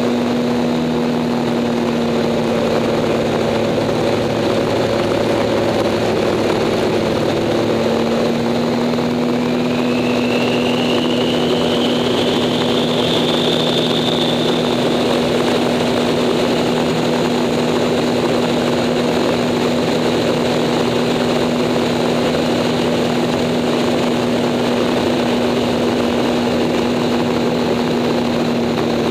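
Acroduster SA750 biplane's piston engine and propeller running steadily in flight, heard from the cockpit under a constant rush of air noise. From about ten seconds in, a faint high whistle rises in pitch over a few seconds and then fades.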